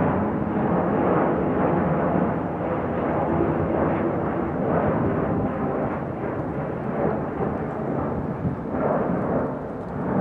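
Airbus A380-841's four Rolls-Royce Trent 970 engines, a steady jet rumble with faint whining tones, slowly fading a little as the aircraft moves away.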